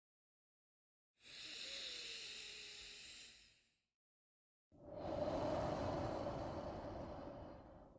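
Slow, paced human breathing for a breathing exercise: a thin hissing breath of about two and a half seconds, a second of silence, then a louder, fuller breath of about three seconds that stops abruptly.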